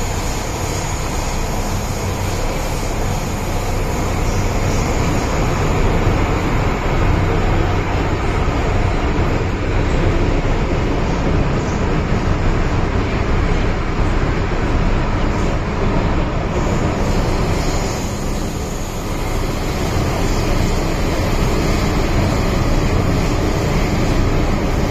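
MTR M-Train electric metro train running, heard from inside the carriage: a steady rumble of wheels on rails over a low, even hum. The sound eases briefly about three-quarters of the way through, then picks up again.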